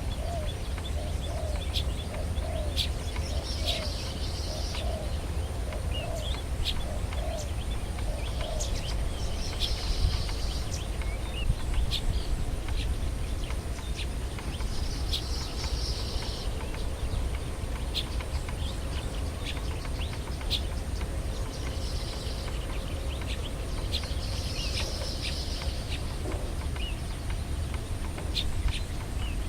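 Wild birds chirping and calling: scattered short high chirps throughout, a run of lower repeated call notes over roughly the first nine seconds, and a short buzzy trill every few seconds, over a steady low background rumble.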